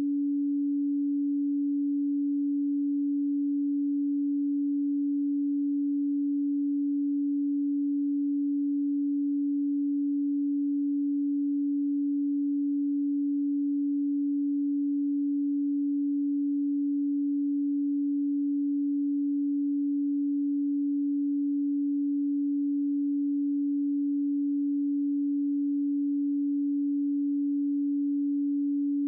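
A pure 285 Hz sine tone, held steady and unchanging: a single low hum with no other sound.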